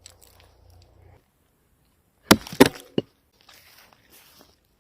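An axe striking wood: two sharp chops in quick succession a little past two seconds in, then a lighter knock just after.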